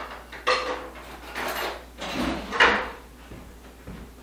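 Three scraping, sliding strokes of about half a second each, with sharp knocks about half a second in and a little past two and a half seconds in, from handling around the knife and package.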